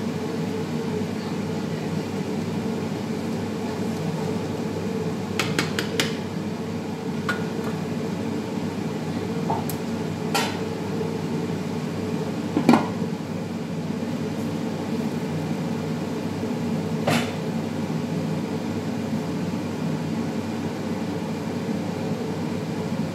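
Steady kitchen machine drone with a constant hum, broken by scattered clinks and clanks of metal pots, utensils and lids. The loudest clank comes about halfway through, as a metal lid goes onto a large cooking pot.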